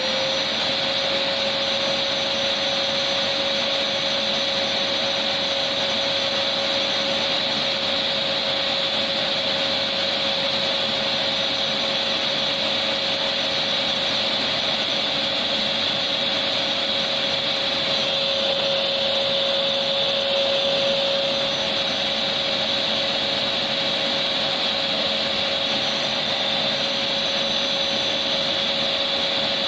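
Electric vacuum cleaner motor running steadily: a continuous airy hiss with a steady whining tone, used as white noise.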